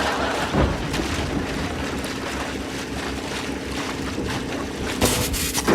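Heat pump running with a steady mechanical drone and scattered clicks. A short loud burst of hiss comes about five seconds in.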